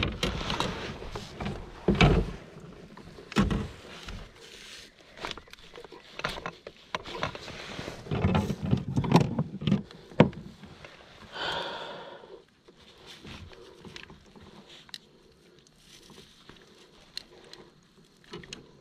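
Irregular knocks, thumps and rustling as a landing net holding a caught fish is handled against a kayak's deck and hull and the hook is worked out with pliers. The heaviest thumps come about 2 s in and again around 8 to 10 s, and the later part is quieter, with only light ticks.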